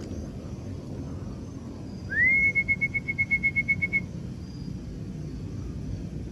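A whistle blown to call racing pigeons down to the loft: one note slides up, then holds steady with a quick warble of about seven pulses a second, starting about two seconds in and lasting about two seconds. A steady low rumble lies underneath.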